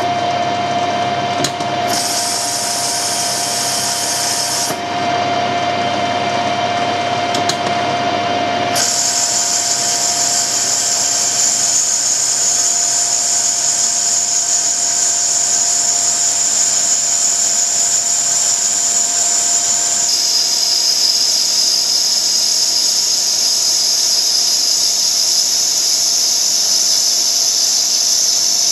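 Metal lathe running with a steady whine while a cutting tool turns down a brass bar, adding a high-pitched cutting hiss. The hiss comes in about two seconds in, stops briefly, returns louder about nine seconds in and drops a little in pitch about twenty seconds in.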